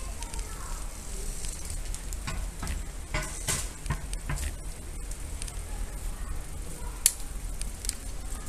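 Bicycle rolling over stone paving: a steady low rumble with irregular crackling clicks and rattles, and one sharper click about seven seconds in.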